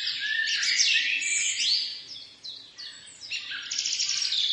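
Small birds chirping and twittering in a busy run of quick, high chirps, with a brief lull about halfway through.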